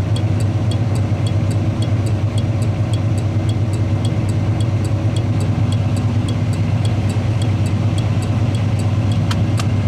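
Factory Tung-Sol 224 thermal turn-signal flasher clicking at an even rate for the left turn signal, over the steady idle of a 1981 Chevrolet Silverado's engine. The engine is the louder sound; the flasher ticks are faint and regular on top of it.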